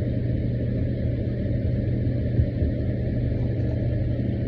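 A steady low mechanical hum with a rumble underneath, unchanging throughout.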